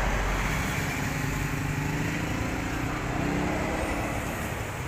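A motor vehicle passing on a road, its engine a steady low hum that eases off slightly near the end.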